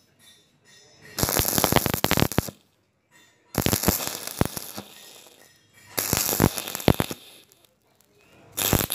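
Stick welding arc crackling and sputtering on a thin metal pipe joint, in four separate bursts of about a second each with short quiet gaps between as the arc is struck and broken again.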